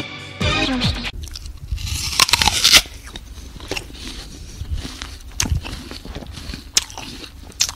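Irregular crisp crackling and crunching of a giant land snail eating, loudest about two to three seconds in.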